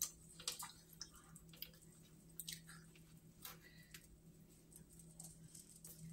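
Near silence: room tone with a low steady hum and a few faint, scattered soft clicks.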